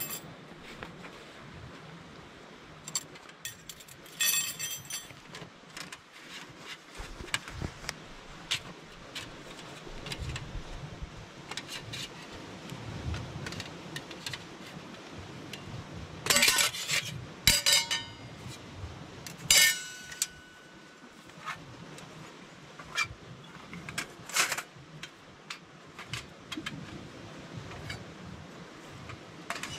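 Thin metal panels of a folding Firebox camp stove clinking, clicking and scraping as they are handled and slotted together, with a few louder clanks in the middle, one of which rings briefly.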